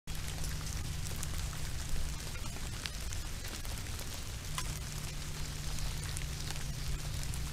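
Steady hiss with a low hum and scattered faint ticks; the hum drops away for a couple of seconds midway.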